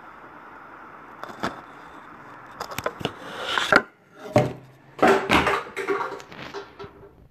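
Handling noise from the recording phone or camera being picked up and moved: a string of knocks, clicks and rubbing against the microphone over a steady room hum, cutting off suddenly near the end.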